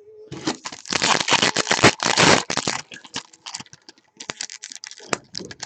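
Trading cards being handled and shuffled by hand: a dense run of sliding, flicking and clicking for about two and a half seconds, then scattered light taps.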